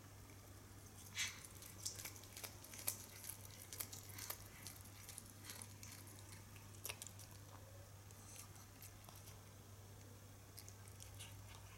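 A cat biting and chewing blades of cat grass: a run of faint, quick crunches and clicks from about a second in to five seconds in, then a few more scattered later.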